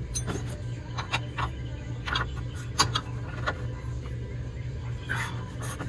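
Scattered metallic clicks and knocks from work on a pickup's front suspension during control-arm removal, over a steady low hum.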